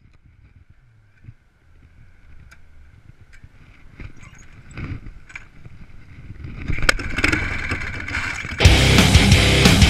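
Clicks and a low rumble building as the 1966 Harley-Davidson Shovelhead motorcycle is started, then loud rock music cuts in suddenly about a second before the end and drowns it out.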